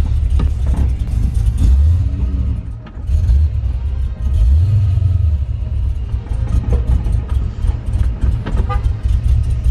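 LS V8 crate engine in a 1999–2004 Ford Mustang, heard from inside the cabin, running under way with a deep steady rumble. The level drops briefly about three seconds in, then the engine pulls up in revs about a second later.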